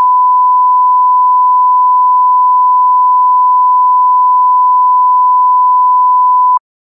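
Samsung Galaxy S4 earpiece receiver test tone from the *#0*# diagnostic menu: a loud, steady, single-pitched beep played to check that the receiver works. It cuts off suddenly near the end.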